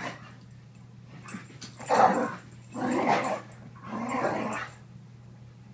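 Brittany dogs growling in play while rough-housing, in three loud bursts about a second apart, starting about two seconds in.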